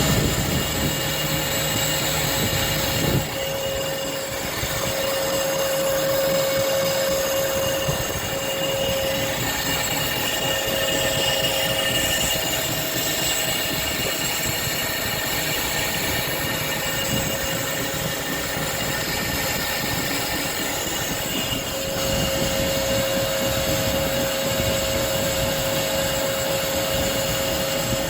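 A lathe running with the cutting tool working the workpiece: a steady machining noise with a high, steady squealing whine over it. The whine weakens in the middle and comes back strongly about 22 seconds in.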